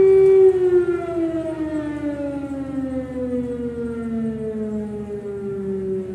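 Air-raid siren sounding in a test: a steady tone that, about half a second in, starts falling in pitch and slowly winds down, quieter, still sounding as it ends.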